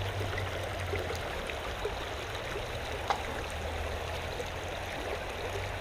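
Creek water running steadily, with a faint brief click about three seconds in.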